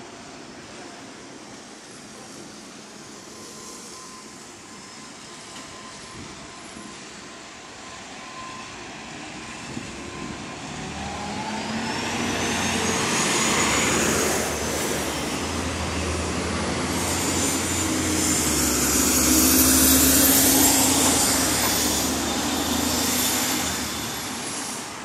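A large motor vehicle's engine passing close by over a steady street background. It swells from about ten seconds in, is loudest twice, then fades near the end, with a high whine rising and falling in pitch over its low hum.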